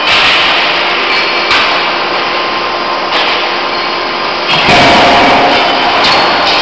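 Loud, steady machine noise from a CNC hydraulic die forging hammer at work in a forge shop. It grows louder and deeper about four and a half seconds in.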